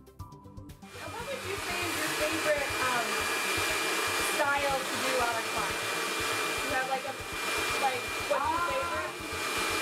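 Hand-held hair dryer switched on about a second in, then blowing steadily: a loud rushing hiss with a thin, steady whine on top.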